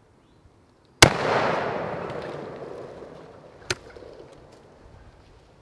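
A single shotgun blast about a second in, its echo rolling through the woods and slowly dying away over several seconds. A much quieter sharp click comes about two and a half seconds after the shot.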